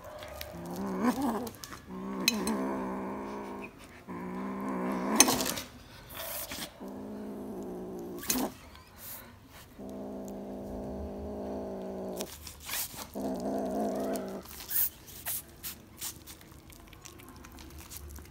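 Black kitten growling over a corn cob it is biting at: a string of about seven drawn-out growls, each a second or two long, the sound of a kitten guarding food. Sharp clicks and crunches of teeth on the cob fall between the growls.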